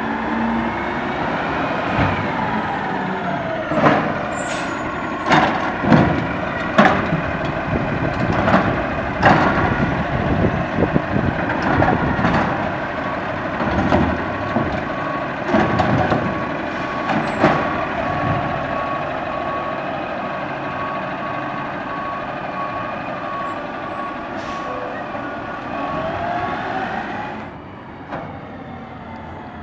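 Autocar ACX garbage truck with a DaDee Scorpion side-loader running, with a string of loud bangs and knocks as carts are lifted and emptied into the hopper. A reversing beeper then sounds over the engine while the truck backs up. Near the end the truck sound drops suddenly to a quieter, more distant level.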